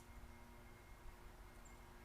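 Near silence: faint background with a steady low hum, and one very short, high chirp near the end.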